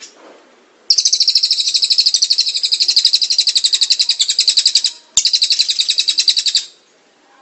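Caged songbird singing a fast, even trill of rapid high notes, held for about four seconds, then after a brief break a second trill of about a second and a half.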